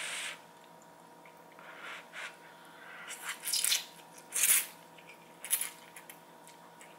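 Green tea noodles being slurped from chopsticks: a run of short sucking slurps, the loudest a little past four seconds in.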